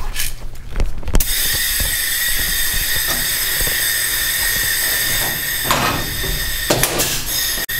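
Air-powered blind-rivet gun hissing steadily once its air is on, with a few sharp snaps near the end as rivets are pulled into the aluminum canopy track.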